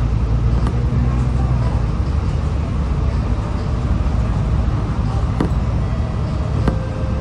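City bus driving, heard from inside the cabin: a steady low engine hum under road noise, with two sharp clicks or rattles in the second half.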